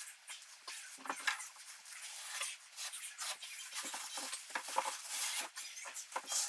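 Rubber grout float scraping and smearing wet grout across ceramic tile, in short irregular strokes as grout is forced into the joints between the tiles.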